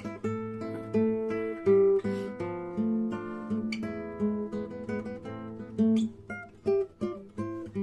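Acoustic guitar playing a tune in plucked notes and strums, several notes a second.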